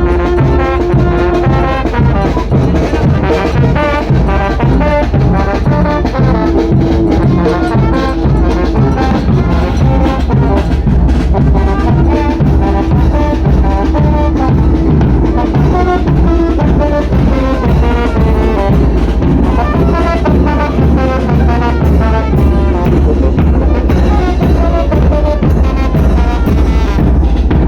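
Mexican banda playing live: trumpets and trombones carrying a lively tune over drums and a heavy bass line, with some long held brass notes.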